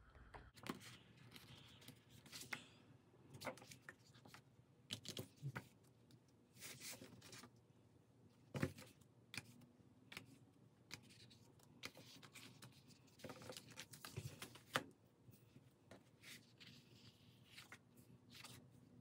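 Faint, scattered paper rustles, soft ticks and scrapes: sticker book pages being flipped and a sticker peeled from its sheet and pressed onto a planner page.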